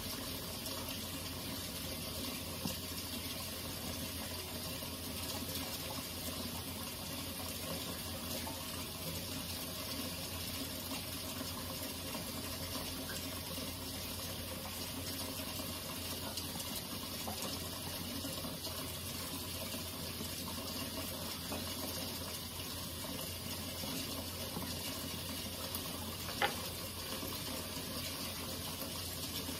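Kitchen faucet running a steady thin stream into the sink. A single short knock sounds near the end.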